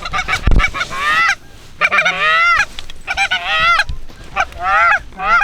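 Canada geese honking and clucking, a rapid series of short calls one after another. A loud low thump about half a second in.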